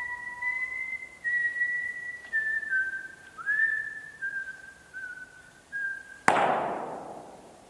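A person whistling a slow tune of held notes, each sliding up into pitch. About six seconds in comes a single sharp bang that rings on in the large hall for over a second.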